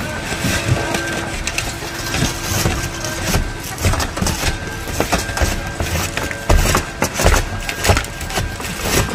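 Roof tear-off work on an asphalt-shingle roof: irregular scraping, knocks and clatter of shingles and debris, with sharper hits every second or so.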